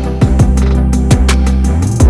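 Background music with a steady drum beat, bass and plucked guitar.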